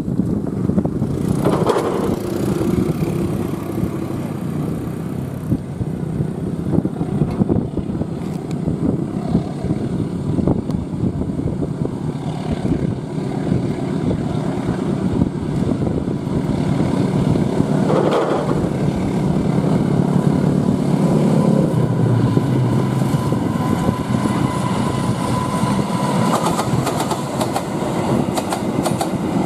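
KAI diesel locomotive hauling a passenger train, approaching and running past below with a steady low rumble that grows a little louder in the last third.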